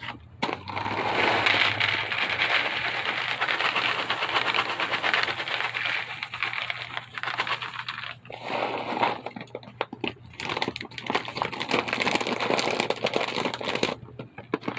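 Dry cat food being poured from a bag, the kibble rattling and crackling with many small clicks in long pours, broken by short pauses about eight and ten seconds in.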